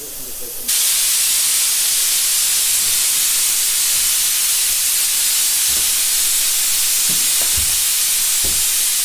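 A loud, steady hiss that starts abruptly under a second in, with a few faint low thumps in its last few seconds.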